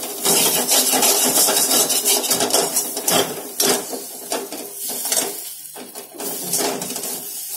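Metal spatula scraping and knocking against a steel kadhai while stirring and mashing a boiled-potato filling, in quick repeated strokes.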